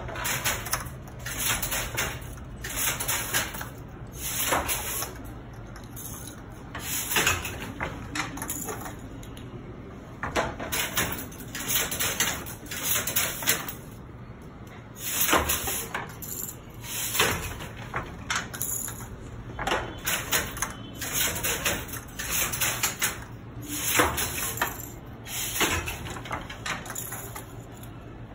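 Wooden Banarasi handloom with a jacquard harness being worked: clacking and rattling in repeated bursts every one to two seconds.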